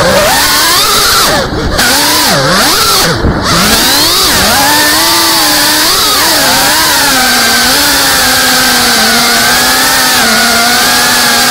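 CineLog35 FPV quadcopter's motors and propellers buzzing loudly, close to the onboard camera, the pitch rising and falling with the throttle. The pitch drops sharply three times in the first four seconds as the throttle is chopped, then holds nearly steady from about six seconds on.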